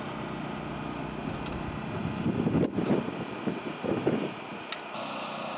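An engine running steadily with an even hum. About two seconds in, irregular low rumbles and knocks join it for a couple of seconds.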